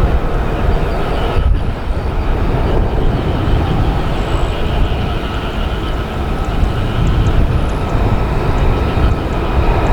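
Jet aircraft engine running: a loud steady rumble with a whine held above it.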